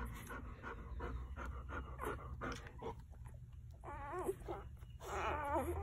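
Day-old golden retriever puppies whimpering: two short, high, wavering squeals about four and five seconds in, after a few seconds of soft short sounds.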